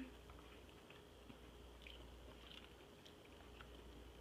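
Near silence with faint, soft chewing: scattered small wet clicks of fast eating.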